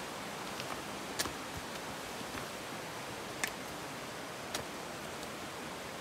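Steady rush of the Rakitnica mountain river flowing over rocks below, with a few sharp clicks.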